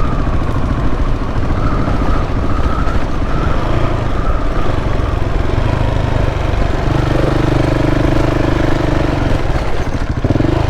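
KTM 690's single-cylinder engine running steadily at low speed on a steep dirt track, its note shifting to a steadier, stronger tone about seven seconds in.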